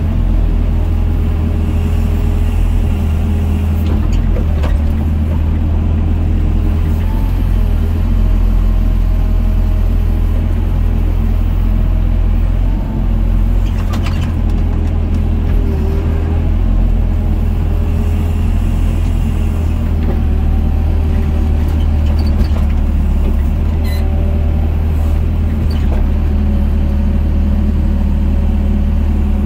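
Doosan DX55 mini excavator's diesel engine running steadily under load, heard from inside the cab, with a hydraulic whine that rises and falls as the boom and bucket work. A few brief knocks sound through it.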